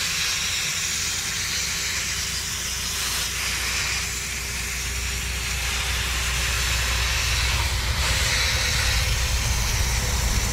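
Pressurized water from a Radiator Genie hose wand spraying into an ATV radiator's fins, a steady hiss of spray. A low rumble swells under it in the second half.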